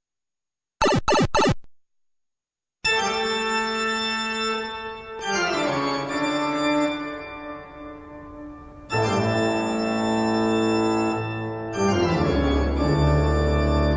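Organ music: three quick notes about a second in, then after a short gap, long held organ chords that change every three to four seconds.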